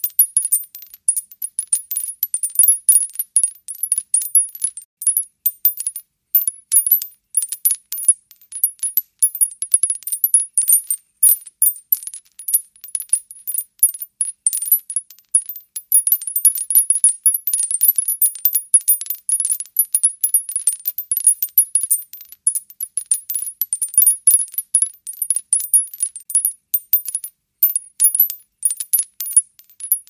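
Spent cartridge cases (bullet shells) dropping and bouncing on concrete: a continuous stream of small, high-pitched metallic clinks, several a second, each ringing briefly.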